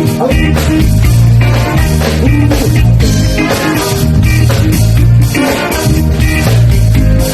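A band playing at a sound check: loud music with a heavy, pulsing bass line, drums and guitar.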